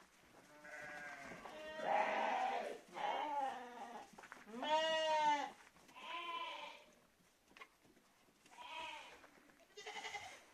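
Dman sheep bleating, about seven calls one after another. The loudest is a longer call about five seconds in that rises and falls in pitch.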